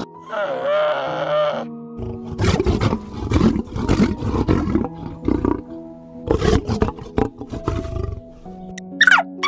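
A lion's rough roaring grunts, repeated about every half second for some six seconds, over soft background music. A short wavering call comes just before them, and a few quick high chirps begin near the end.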